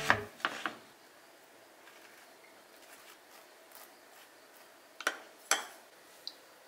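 A wooden butter knife faintly scraping and rubbing garlic butter across slices of bread. There are a few sharp clicks near the start, and two louder clicks about half a second apart some five seconds in.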